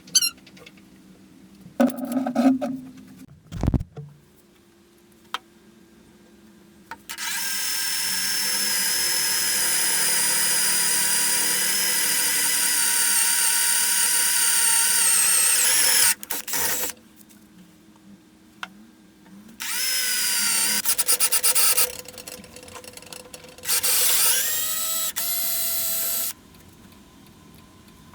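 Electric power tool motor whining at speed: one long steady run, then two shorter runs that rise in pitch as the motor spins up. A few knocks and clatter come before the first run.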